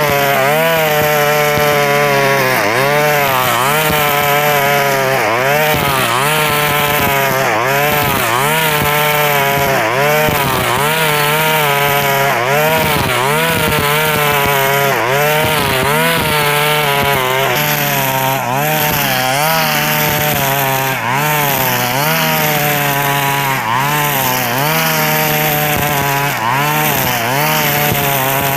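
Two-stroke KNC 4400 brush cutter running loud at high revs, its pitch sagging and picking up again about once a second as the nylon line swings through tall grass. The exhaust muffler is rusted through with small holes, which the owner says makes it very loud, like an old warship.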